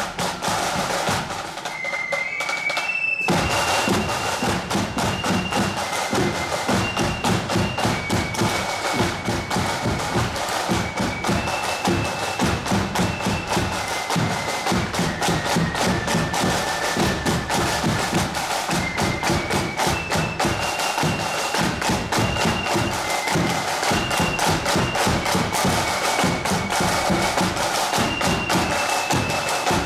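Marching band playing a tune as it parades: a high melody line of held notes over a steady beat of snare and bass drums. The full band with drums comes in strongly about three seconds in.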